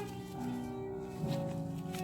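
Background music: pitched instruments playing sustained notes that change about every half second, with a lower chord entering about a second in.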